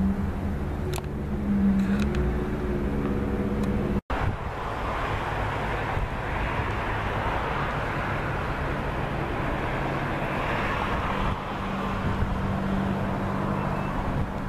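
A diesel locomotive engine running in the distance, a steady low drone. About four seconds in the sound cuts off abruptly and gives way to a steady outdoor noise with no clear calls.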